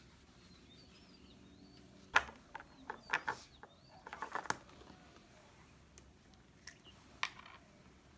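A handful of sharp clicks and taps from small objects being picked up and set down on a desk, clustered in the middle and once more near the end. Faint bird chirps sound in the background.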